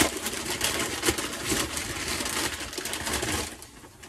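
Paper rustling and crinkling as an item is unwrapped from its paper wrapping by hand, dying down about three and a half seconds in.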